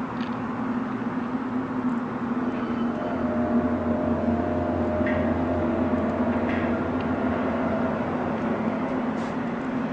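Unexplained low droning hum of the kind reported as 'strange sounds' in the sky over Winnipeg. About three seconds in, a deeper drone and a higher steady tone join it, swelling slightly and then fading back near the end.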